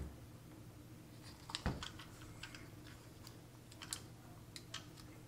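Small plastic connector clicks and handling noise as a battery plug is worked onto an RC car's wiring lead: a few scattered light clicks, the sharpest about a second and a half in.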